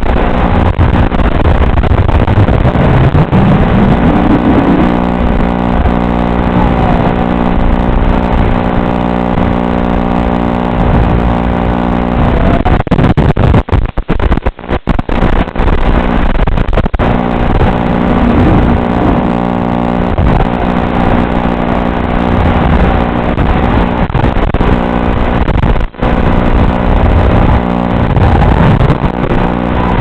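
Electric motors of a Beta85X FPV whoop drone in flight: a steady, layered motor hum whose pitch shifts and glides with throttle. There are brief dropouts in the sound around the middle.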